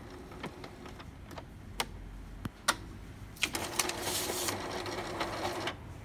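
Epson M200 inkjet printer's mechanism running its print-head cleaning cycle. A few separate clicks come first; then, a little past halfway, a motor runs with a steady hum and a rapid clicking rattle for about two seconds and stops abruptly.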